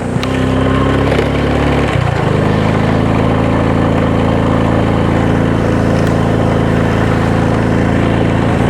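A small engine running steadily; its pitch shifts once, about two seconds in, then holds.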